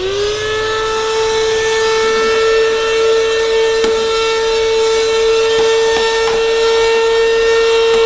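Cordless handheld vacuum cleaner's motor whine, rising in pitch just at the start and then holding a steady high note while the nozzle sucks fine resin and plywood dust off a belt sander. A few faint ticks sound over the whine.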